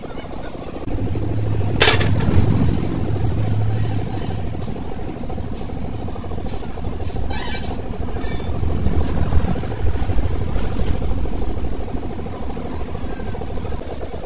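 A vehicle engine running in the background, with a sharp metallic click about two seconds in and a couple of lighter clicks later.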